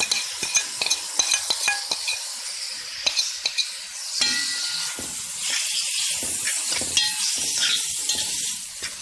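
Chopped onion with spices sizzling in oil in a metal pot while a metal spoon stirs it, with a steady hiss and frequent small clinks and scrapes of the spoon against the pot.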